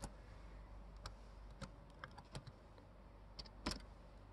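Faint typing on a computer keyboard: a handful of separate keystrokes, the loudest pair about three and a half seconds in.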